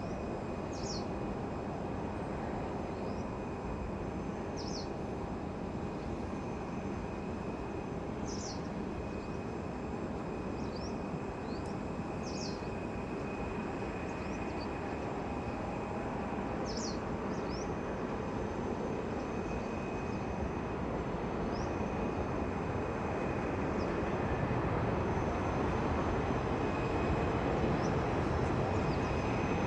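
Distant Boeing 747-400 freighter's four jet engines, a steady rumble and rush as the aircraft lands and rolls out along the runway, growing a little louder over the last few seconds. A faint steady high whine sits over it, and a few short high chirps come and go.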